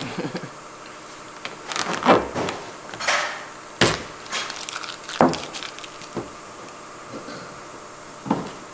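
Scattered clicks, snaps and crackles of a small plastic dealer emblem being pried and peeled off a truck's painted bed panel by hand; one sharp snap a little before the middle is the loudest.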